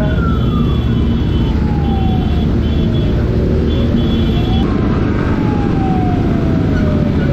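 A siren wailing, its pitch sweeping slowly up and down, over a loud, steady low rumble.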